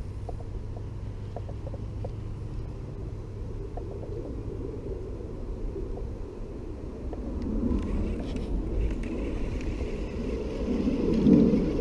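Wind rumbling on the microphone, a low steady buffeting that grows stronger in gusts over the second half.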